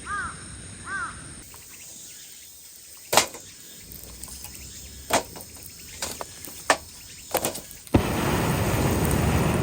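A crow caws twice, then a string of separate sharp clicks and knocks from camp handling, followed by a steady loud hiss for the last second and a half.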